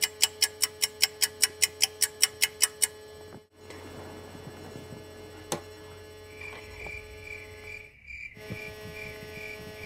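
A clock ticking fast, about five ticks a second, which stops about three seconds in. About six seconds in, a digital alarm clock starts beeping, a high pulsing beep repeating a few times a second.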